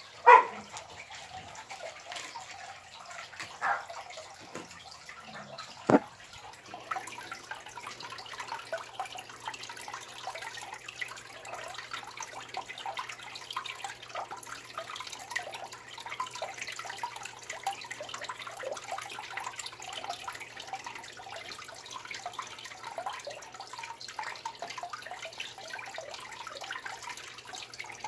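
Aquarium water bubbling and crackling with many small pops, over a low steady hum that sets in about seven seconds in. A few sharp knocks come in the first six seconds.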